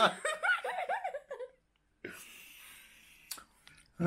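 Two people laughing together: a run of short rising-and-falling laugh pulses that dies away about a second and a half in. Afterwards only a faint rustle and a single click near the end.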